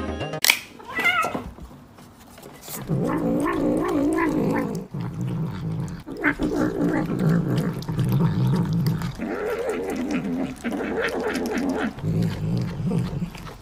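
A cat making long, wavering growling yowls in several runs of one to three seconds as it eats, after a brief high call about half a second in.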